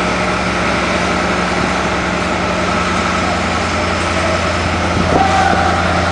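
Mobile crane's diesel engine running steadily while it holds a lifted steel space-frame section. About five seconds in, a short high tone rises and holds briefly over the engine.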